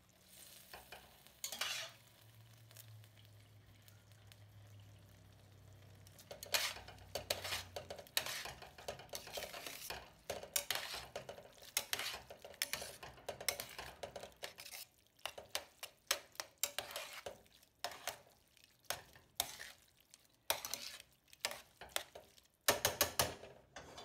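A metal utensil stirring and tossing spaghetti through tomato sauce in a stainless steel sauté pan: irregular scrapes and clinks against the pan, starting about six seconds in and running on, after a single knock near the start.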